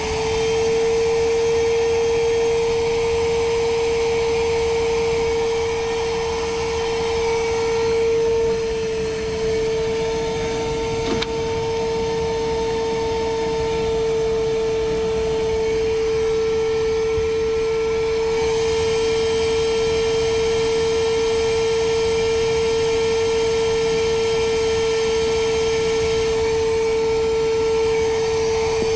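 Vacuum running steadily with a constant whine, sucking on a clogged AC condensate drain line to clear it; its tone shifts slightly a few times, and there is a single sharp tick about eleven seconds in.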